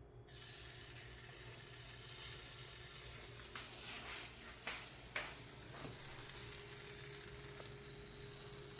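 Pancake batter sizzling in a hot pan. The sizzle starts just after the batter goes in and holds steady and faint, with a few soft pops in the middle.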